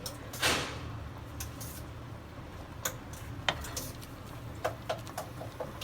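Kitchen utensils clicking and tapping a few times while food colour is added to boiling rice. There is a brief rustling hiss about half a second in, and a low steady hum underneath.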